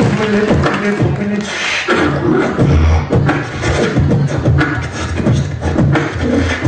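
A beatboxer performing into a handheld microphone: a fast, steady rhythm of vocal kick, snare and hi-hat sounds over low held tones.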